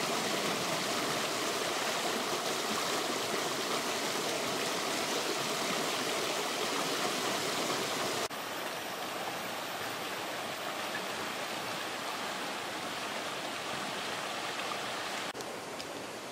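A shallow, rocky stream running steadily, a constant rush of water. The level drops a little about eight seconds in and again shortly before the end.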